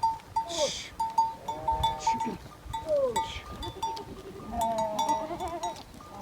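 Sheep in a flock bleating, several calls one after another, with a longer wavering bleat about four and a half seconds in.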